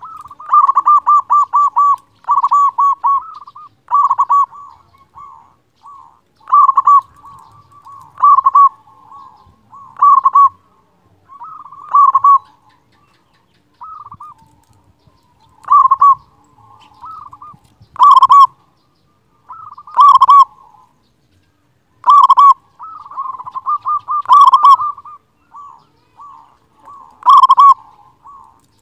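Zebra dove (perkutut) singing: a fast run of rolling coos to begin, then one loud cooing phrase about every two seconds.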